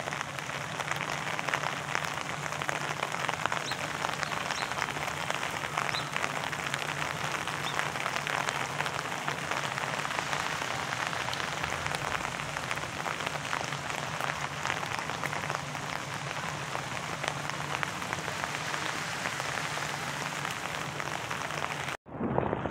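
Steady rain falling, an even hiss full of fine individual drop ticks. It cuts off suddenly near the end.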